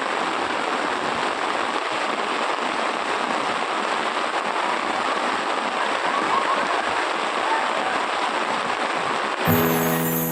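Rautwadi waterfall in full monsoon flood: steady rushing of heavy falling water. Music starts near the end.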